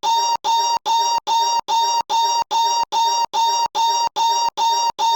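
A short novelty noise clip looped back to back, about two and a half repeats a second. Each repeat is the same high, steady, buzzy tone that starts and stops abruptly, giving a stuttering, scratch-like effect.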